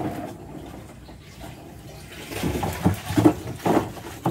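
A plastic sack holding live African catfish rustles and the water in it sloshes. The sound comes in several uneven bursts, mostly in the second half.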